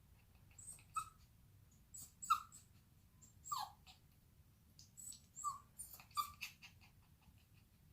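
Young Bichon Frise dog whining: about five short, high whimpers, one about three and a half seconds in sliding down in pitch, with short noisy breaths between them.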